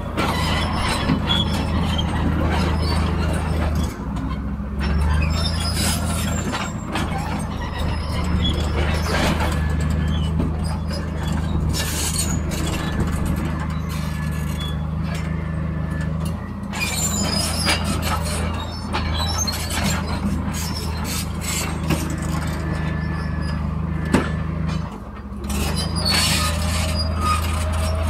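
Hydraulic excavators digging and loading rock and dirt into dump trucks. Their diesel engines hold a steady low drone, with frequent sharp knocks and clatters from the bucket and falling rock.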